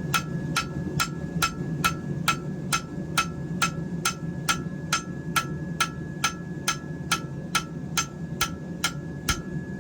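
Hammer blows on a steel knife blank at an even pace of about two strikes a second, each with a short metallic ring, as the single bevel is forged in. A steady low hum runs underneath.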